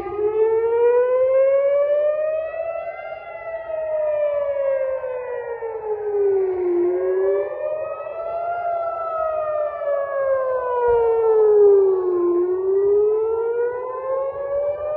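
Civil-defence air-raid sirens wailing, rising and falling slowly in pitch over several seconds each way, with a second siren overlapping out of step: the warning of an incoming missile attack.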